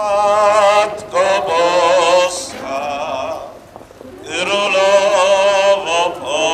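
A single voice singing a slow hymn in long held, wavering notes, phrase after phrase, with a short pause near the middle.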